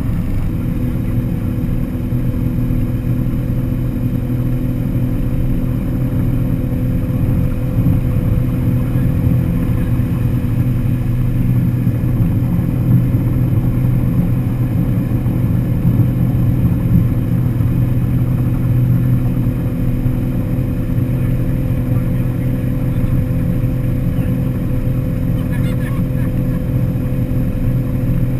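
Motorboat engine running at a steady speed while the boat is under way.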